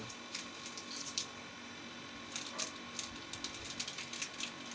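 Plastic snack packets crinkling and crisp snacks being crunched while eaten: a scattered run of short, sharp crackles.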